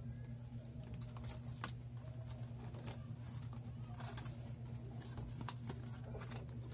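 Scattered light clicks and taps as a smartphone and its cardboard box are handled and set down, over a steady low hum.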